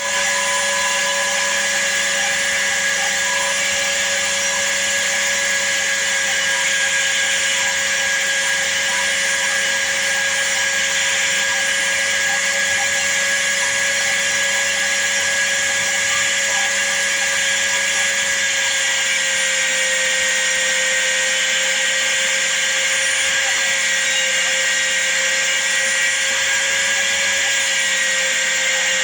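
Electric power sander running steadily with a constant motor whine and hiss, rounding off a knife's wooden handle.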